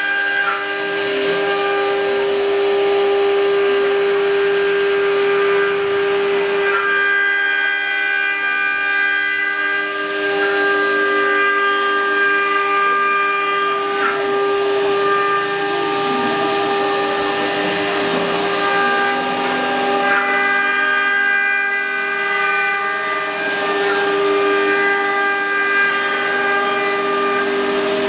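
Multi-spindle 4-axis CNC wood router running, its row of eight spindles giving a steady many-toned whine as the cutters carve wooden pieces turning on the rotary axis. A lower, wavering tone comes and goes in the middle as the cut changes.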